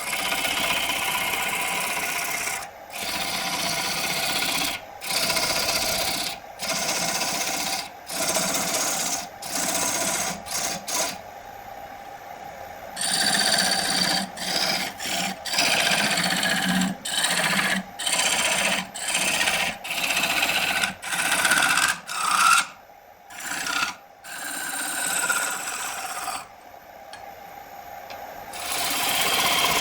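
Repeated strokes of a rasp or abrasive rubbing against wood, each about a second long with short breaks between them, pausing briefly twice near the end.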